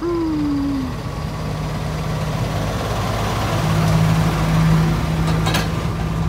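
Hino ten-wheel dump truck with a full trailer driving past at close range: a steady diesel engine note that grows loudest about four seconds in as the truck passes, over tyre noise on the dirt road. A brief falling tone sounds in the first second, and a few clicks come near the end.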